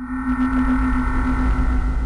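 Steady electrical hum with a deep drone and a few held steady tones, one of them a strong mid-low note, unchanging throughout.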